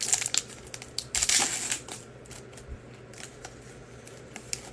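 Trading card packs and cards being handled: two crinkly rustling bursts, the second a little longer, about a second apart, then scattered light clicks and taps.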